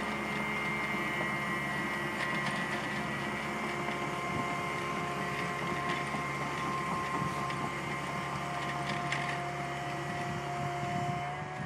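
Compact excavator's engine and hydraulics running steadily with a whine, with a few faint knocks and a slight change in pitch near the end.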